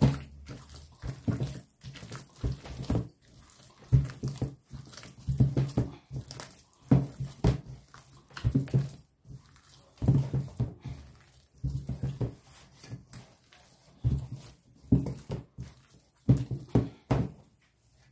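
Soft, sticky picarones dough of sweet potato, squash and flour being beaten and worked by hand in a bowl: repeated irregular slaps, about one or two a second in clusters.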